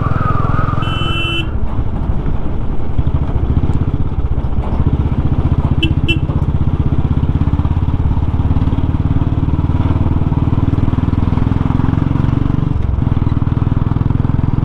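Motorcycle engine running steadily under way on a dirt road, with a deep rumble throughout. Two short high beeps come about a second in and again about six seconds in.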